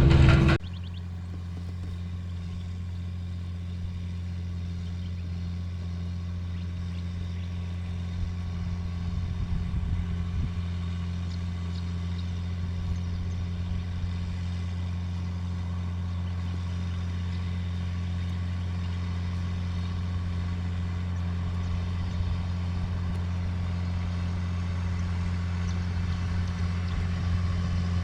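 John Deere farm tractor's diesel engine running at a steady drone, its low hum unchanged and getting slightly louder toward the end.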